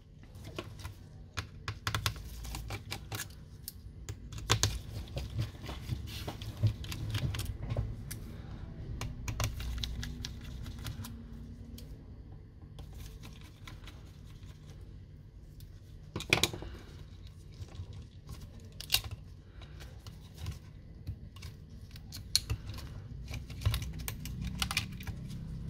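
Scattered clicks and taps of small laptop parts being handled and removed during disassembly, over a steady low hum.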